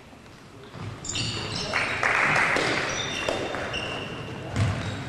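Basketball shoes squeaking on a sports-hall court as players move, with a loud burst of shouting voices about two seconds in and the ball bouncing near the end.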